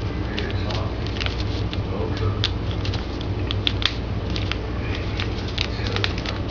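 A sheet of printer paper being folded and creased by hand, giving many short, irregular crinkles and clicks over a steady low hum.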